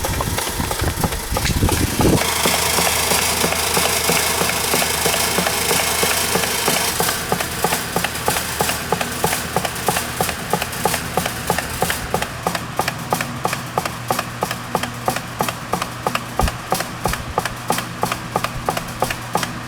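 Old electric table fan (Super Deluxe) running, its motor giving a steady hum that settles in about two seconds in. Later a rapid, even clicking, about four to five a second, comes in over the hum.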